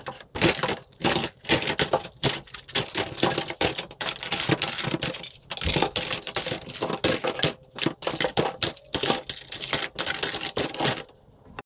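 Plastic toy guns clicking and rattling in quick, irregular succession, stopping shortly before the end.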